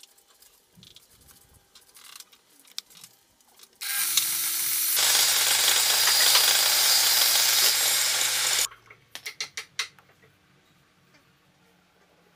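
Table saw cutting through a wooden board: a loud, steady noise with a low hum for about five seconds, starting and stopping abruptly. Light clicks and knocks of the board being handled on the saw table come before and after the cut.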